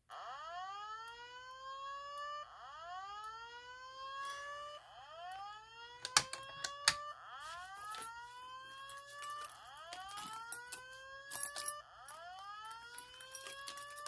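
Fire alarm speaker sounding the slow whoop evacuation tone: a sweep rising in pitch, repeated about every two and a half seconds, six times. A few sharp clicks cut in about six seconds in and again near eleven seconds.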